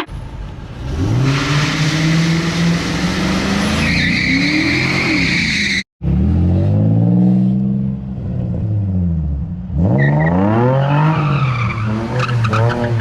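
A motor engine revving up and down over and over, its pitch rising and falling in repeated sweeps, cut off abruptly for a moment about six seconds in.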